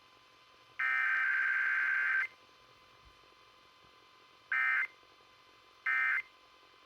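Emergency Alert System SAME digital data bursts over the radio: one data burst of about a second and a half, the last of the header bursts, then after a pause two short end-of-message bursts about a second apart, which signal that the alert has ended.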